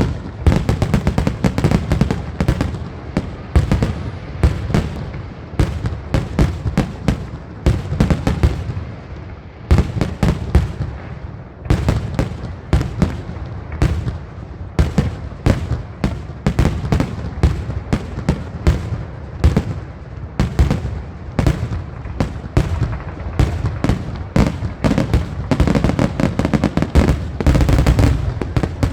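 Fireworks grand finale: a dense, near-continuous barrage of aerial shell bursts and crackling reports, bangs overlapping with a rumbling low boom throughout.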